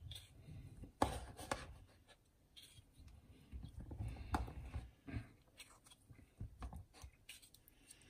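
Kitchen knife scraping and tapping on a cutting board while black olives are cut: faint irregular light taps and scrapes, with a couple of louder knocks.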